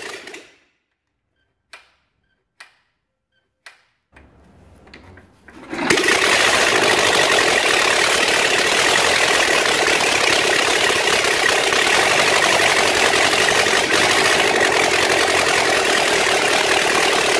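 Ariel Square Four's air-cooled square-four engine starting: a few faint clicks, then about six seconds in it catches and runs steadily.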